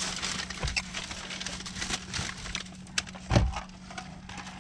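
Scattered light clicks and knocks over a steady low hum, with one louder thump a little past three seconds in.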